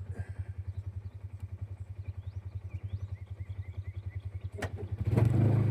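A small vehicle engine running at idle with a steady, fast low pulse, which grows louder about five seconds in as it revs up. Faint bird chirps come through in the middle.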